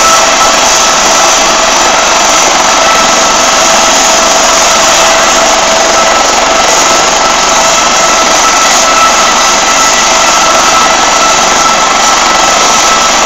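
Eurocopter AS365 Dauphin helicopter running on the ground with its main rotor turning: a loud, steady rushing of turbine and rotor noise with a constant high whine through it.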